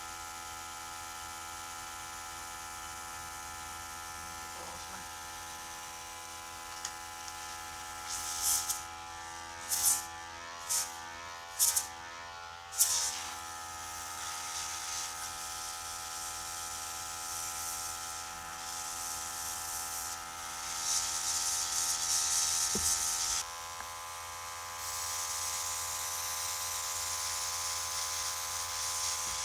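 A small airbrush compressor runs with a steady buzzing hum. About a third of the way in, air hisses out of the airbrush in five short bursts, followed by longer spells of hiss in the last third.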